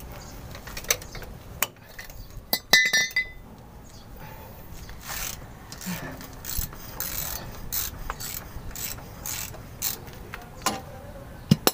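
A ratchet wrench working on the oil filter under a truck, clicking in short strokes about twice a second. There are sharp metal knocks and clinks about three seconds in and again near the end.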